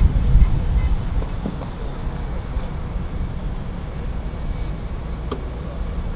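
Low, steady outdoor rumble of road traffic with wind buffeting the microphone, a little louder in the first second.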